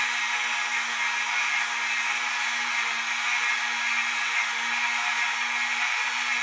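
Dremel rotary tool with a wire brush running steadily as a steady whine over a hiss, brushing a brass clock gear clean.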